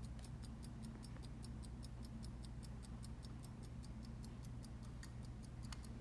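Elgin 7-jewel key-wind pocket watch movement ticking steadily, about five ticks a second.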